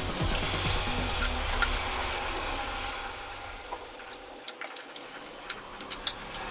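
Scattered sharp clicks and clinks of hand tools on metal, over a low steady rumble that fades out about halfway through.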